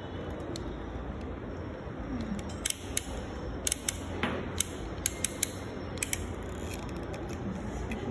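Sharp, irregular clicks of a hand tool cutting through the outer jacket of an Ethernet cable, most of them in the middle few seconds, over a steady low hum.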